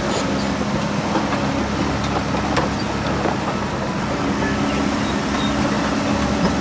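Heavy diesel earthmoving machinery running steadily, its engine note even throughout, with a few faint metallic clicks.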